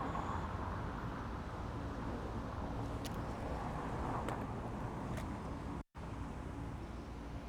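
Steady street ambience with a low traffic rumble, broken by a few faint clicks, and the sound cuts out for an instant about six seconds in.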